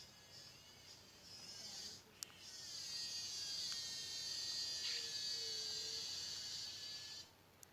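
A high, steady buzzing animal call that builds a couple of seconds in, holds for about four and a half seconds and cuts off suddenly near the end. It follows a few short chirps.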